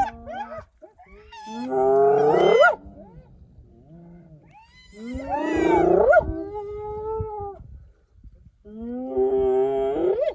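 Spotted hyenas calling: three drawn-out calls, each sweeping upward in pitch at its end, with short pauses between them.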